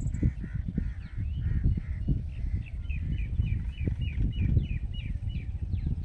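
Rose-ringed parakeet calling: a few evenly spaced calls, then a quicker run of short falling notes about three a second, ending in some sharp downward sweeps. A loud low rumble of wind on the microphone runs underneath.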